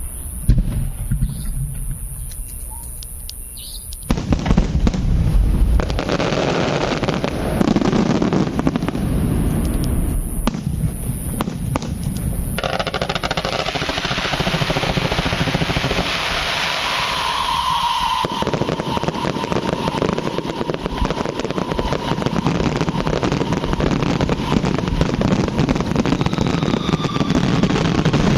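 Fireworks going off: a few scattered bangs, then about four seconds in a sudden, dense, continuous crackling that keeps going.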